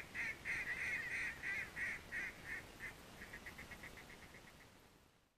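A descending series of mallard hen-style quacks, about three a second, loud at first and fading. They run into a fast string of soft short notes and stop shortly before the end.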